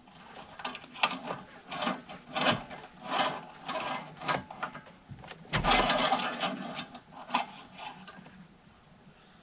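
Irregular clicks, scrapes and rustles of the engine-oil dipstick being wiped with a paper towel and slid back into its metal tube. The loudest, longest rustle comes a little past halfway.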